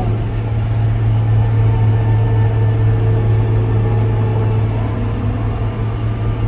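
Gleaner combine running while harvesting wheat: a steady low drone with a fainter, steady higher whine above it.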